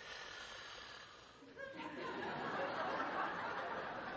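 Audience laughing, quiet at first and swelling louder about two seconds in.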